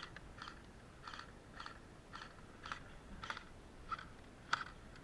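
Footsteps crunching through dry vegetation or gravel at a steady walking pace, about two steps a second, the last step near the end loudest.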